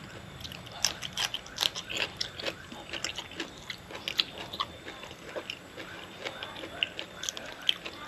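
A person chewing crisp raw green vegetable close to the microphone, with many short, sharp crunches and wet mouth clicks.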